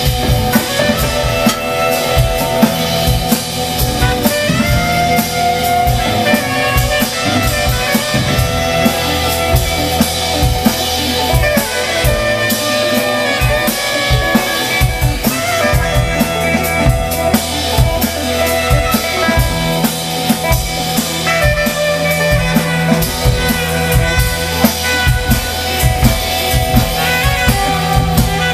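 Live jazz-funk band playing: a saxophone carries sustained lines over busy drum-kit playing, with electric guitar and keyboards filling in.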